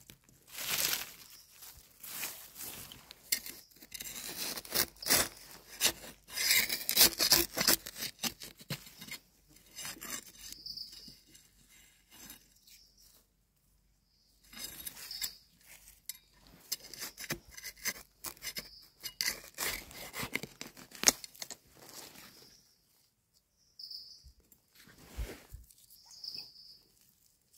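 Hands scraping and rustling through dry soil and leaf litter in several bouts, digging out and pulling up termite mushrooms. Short high insect chirps come every second or two, and stand out in the quieter gaps.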